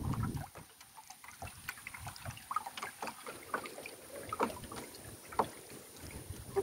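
Wind buffeting the microphone for the first half second, then a quiet stretch of scattered small water drips, splashes and light knocks around a wooden canoe.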